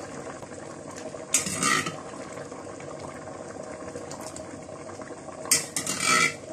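Rice boiling steadily in a stainless steel pot, with a constant bubbling. Spoonfuls of tomato stew go in twice, each a brief louder clatter of spoon and pot, about a second and a half in and again near the end.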